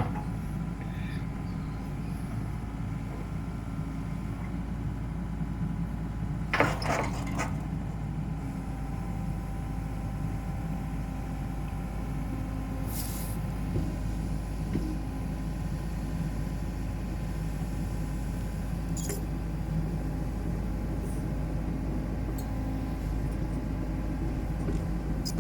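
Komatsu PC78UU excavator's diesel engine running steadily. There is a short clatter about seven seconds in and a brief hiss about thirteen seconds in.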